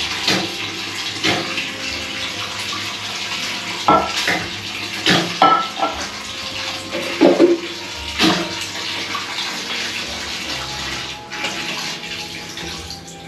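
Bathroom sink tap running steadily into the basin, with brief louder sounds now and then from hands and water at the sink as teeth are brushed and faces washed.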